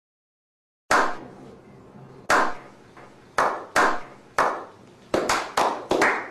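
Slow clap: single hand claps starting about a second in, well over a second apart at first and speeding up to several a second near the end, each with a short echo.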